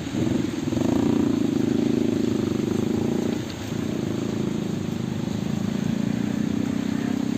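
An engine running steadily, dipping briefly about three and a half seconds in and then running on at a slightly lower pitch.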